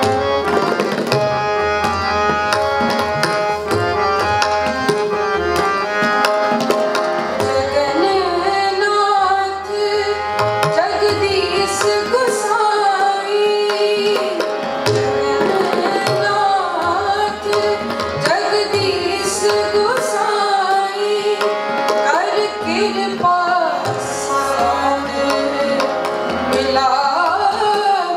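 Sikh kirtan: harmonium playing held chords with tabla keeping the rhythm, its bass drum thudding in the low end. About eight seconds in a woman's voice comes in singing the shabad over them.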